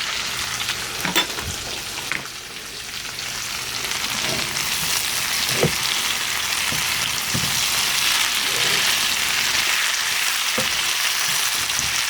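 Sliced potatoes frying in a skillet without added water, giving off a steady sizzling hiss that grows a little louder a few seconds in, with a few light knocks near the start.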